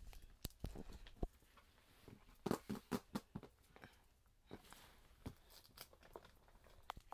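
Faint scattered taps, scratches and rustles of cat paws and claws on a box during play, with a quick cluster of sharper taps about two and a half seconds in.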